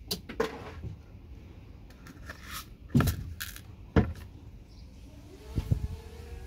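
Hard plastic and metal connector parts of a network patch panel clicking and knocking as they are pried apart and handled with tools: several separate sharp knocks, the loudest about three and four seconds in.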